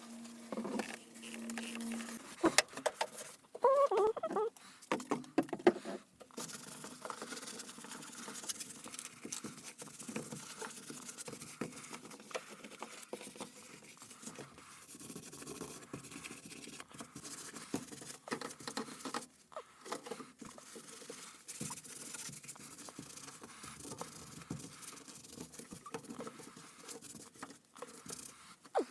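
Sped-up sound of a car interior being hand-cleaned: a fast, busy patter of rubbing and scraping with many sharp little clicks and knocks.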